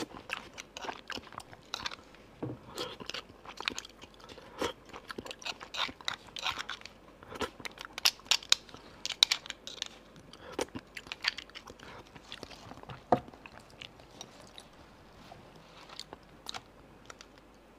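Close-miked eating of beef bone marrow: a small metal spoon scraping marrow out of a split roasted bone, with chewing and mouth smacks, heard as a steady run of short clicks and smacks.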